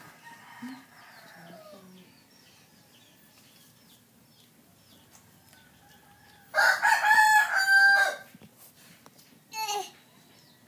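A rooster crowing once, loud, for about a second and a half, about two-thirds of the way through, with a shorter falling call shortly after.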